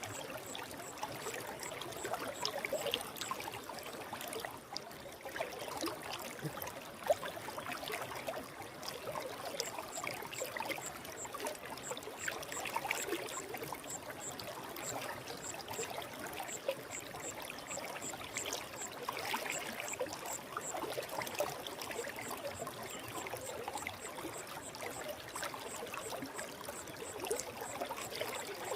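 Shallow stream water running and babbling steadily over stones, with fine trickling detail throughout. A faint high-pitched chirp repeats a few times a second through much of it.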